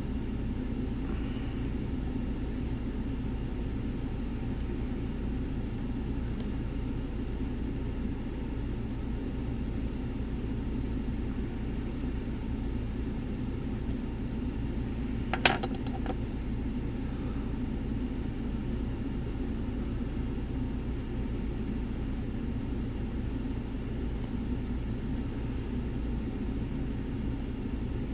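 Dimple-lock picking: a short rattle of sharp metallic clicks from the pick and tensioner against the lock a little past halfway, with a few faint ticks elsewhere, over a steady low rumble.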